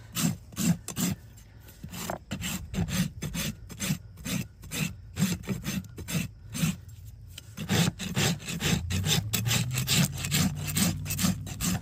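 A farrier's hoof rasp being drawn flat across the bottom of a horse's trimmed hoof to level it, in quick rhythmic rasping strokes, about two to three a second, with a couple of short pauses.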